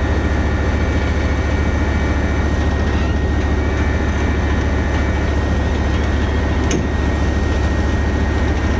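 IS-3 heavy tank's V12 diesel engine running steadily as the tank creeps forward on the transporter trailer: a deep, even drone.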